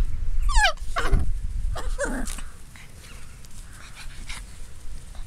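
Australian Labradoodle puppies whining: three or four short high whimpers in the first two and a half seconds, each falling in pitch, then quieter.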